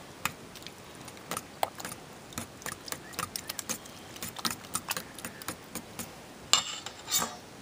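A spoon clinking and scraping against a stainless steel mixing bowl while stirring an egg and sausage batter, in irregular light clicks, with two longer, louder scrapes near the end.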